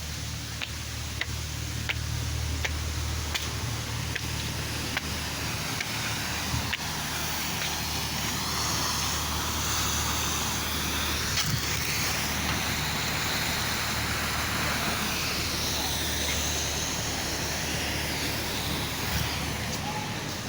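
A motor vehicle engine running at a steady low hum. For the first seven seconds or so a short regular tick comes about every two-thirds of a second. A wavering higher sound runs through the second half.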